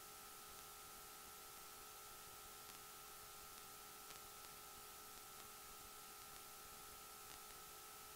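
Near silence: a faint steady hiss with a few faint steady hum tones.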